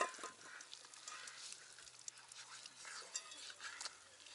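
Water dripping and splashing into a metal basin as hands scrub wet hair, in light scattered splashes and small ticks.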